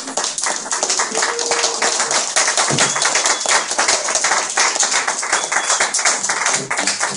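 Small audience applauding: a dense, steady patter of many hand claps.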